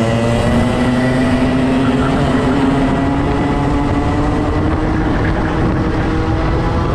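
Race kart engine at high revs, heard onboard the kart. Its pitch climbs steadily over the first few seconds as the kart accelerates, then levels and eases slightly near the end, over a constant rushing noise.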